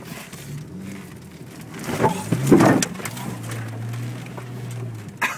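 Jeep engine running in low gear through a mud hole, with a loud burst of splashing mud and water and knocks against the body about two seconds in, then the engine running on steadily.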